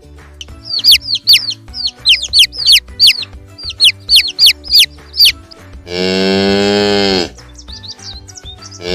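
A run of quick, high, downward-sliding peeps from chicks, about a dozen over five seconds, then a cow mooing once, loudly, about six seconds in, with a second moo starting at the very end.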